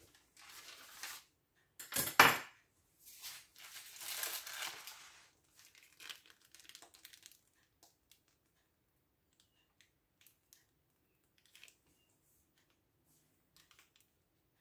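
Crinkling and rustling handling noise in a few bursts over the first five seconds, the sharpest about two seconds in, then only faint scattered clicks.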